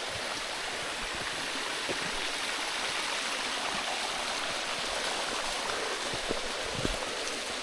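Mountain stream running over rocks, a steady rushing babble, with a few faint footsteps on the trail.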